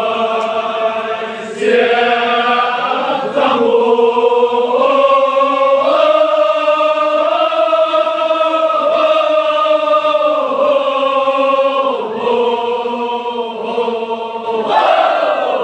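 Kashmiri marsiya chanted by a group of men in unison, in long held notes that step up and down in pitch with short breaks between phrases.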